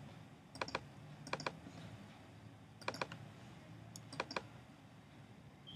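Faint computer clicks: four quick groups of two or three clicks, spread over about four seconds.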